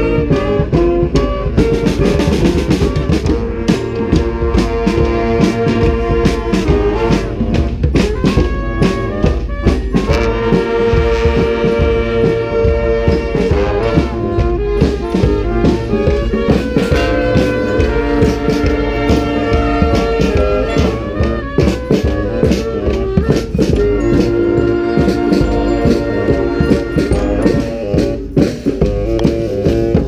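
Brass street band playing a loud up-tempo tune: trumpets, trombones, saxophone and sousaphone over snare and bass drums keeping a steady beat.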